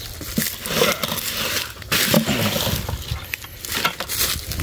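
Woven plastic sack wrapped around papayas rustling and crackling as it is brushed and handled, in irregular crunches.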